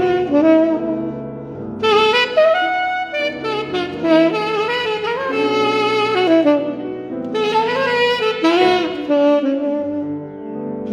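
Saxophone playing a slow melody in phrases, its notes bending and gliding, over sustained grand piano chords. Brief dips between phrases come about two seconds in and again about seven and a half seconds in.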